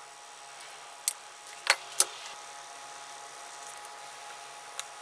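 Sharp small metallic clicks and taps, the loudest a close pair about two seconds in, from a small screwdriver and the metal parts of a groove cutter's switch being handled and pried apart. A steady faint hum underneath.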